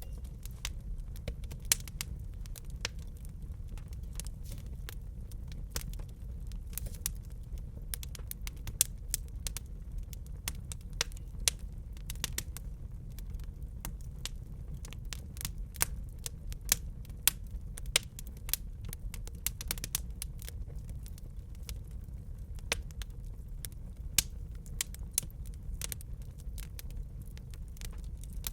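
Wood fire crackling in a fireplace: irregular sharp pops and snaps over a steady low rumble of the flames.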